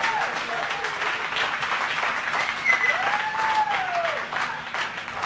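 A roomful of people applauding and cheering, with one voice giving a long drawn-out shout about halfway through.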